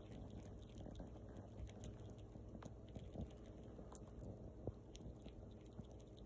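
Young fox squirrel nibbling and chewing a dry, crumbly snack held in its forepaws: a quick run of faint crunchy clicks, with two sharper crunches, one about three seconds in and one near the five-second mark.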